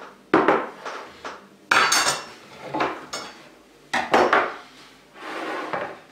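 Kitchen clatter: a handful of sharp knocks and clinks as a plate holding a raw chicken and a wooden cutting board are set down and moved on a wooden tabletop.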